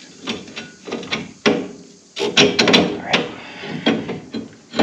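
Irregular metallic clinks and knocks as U-bolts and a lift block are handled and fitted against a truck's rear leaf spring, with a cluster of sharper knocks about halfway through.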